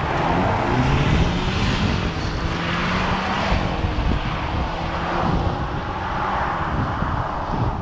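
Mercedes-Benz E350 coupe accelerating hard from a standstill, its engine note rising through the gears, with heavy wind and road noise.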